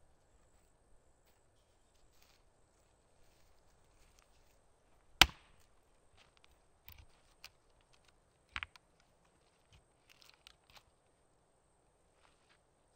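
An axe chopping into a log on a chopping block to split firewood: one sharp, loud chop about five seconds in, then a second, weaker double strike a few seconds later. A few small knocks of wood come between and after.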